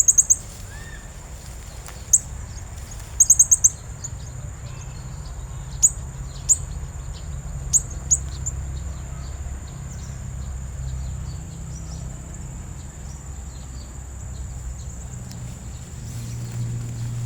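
Serindit (blue-crowned hanging parrot) giving sharp, high-pitched chirps, singly and in quick runs of three or four, mostly in the first half. Under them run a steady thin high tone and a low rumble.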